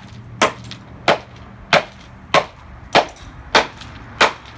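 Hammer blows on the hard plastic casing of a Dreamsky DS206 alarm clock radio: seven sharp strikes at an even pace, a little under two a second.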